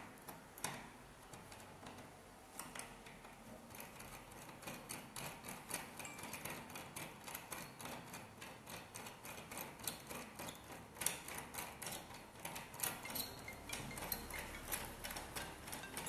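Small metallic clicks and ticks, irregular and several a second, from a lock-pick turning tool and picks being worked inside a car door lock cylinder. The clicks are sparser for the first couple of seconds, then come more thickly.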